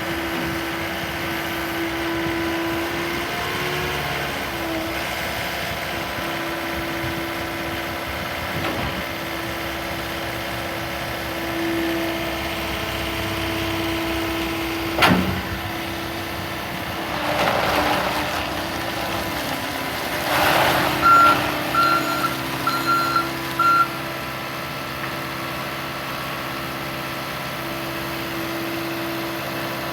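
John Deere 320G skid steer's four-cylinder diesel running steadily, with a sharp clack about halfway through and two swells of rushing noise soon after. About two-thirds of the way in its backup alarm beeps four times as the machine reverses.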